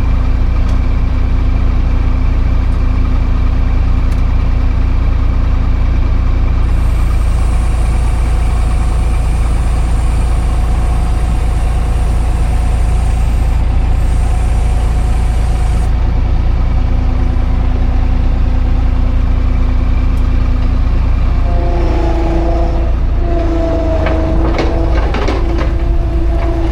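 Engine of farm machinery idling steadily close by. About 21 seconds in, a steady whine joins, and a quick run of sharp metallic knocks follows near the end.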